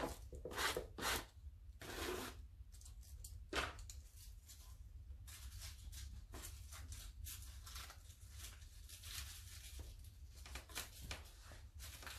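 Faint, scattered rustles and scrapes of paper being handled, with a few clearer short noises in the first four seconds and only faint ones after.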